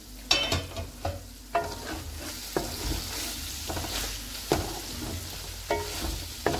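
A spatula stirring thick okra-and-chicken curry in a metal pot, knocking and scraping against the pot at irregular intervals. Under it the oily masala sizzles steadily on very low heat.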